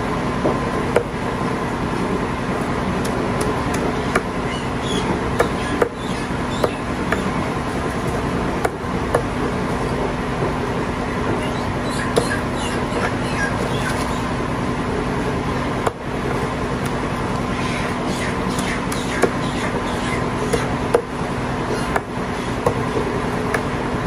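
Meat cleaver chopping raw chicken on a thick wooden chopping block: sharp, irregular chops, sometimes several in quick succession. Underneath is a steady, loud background hum.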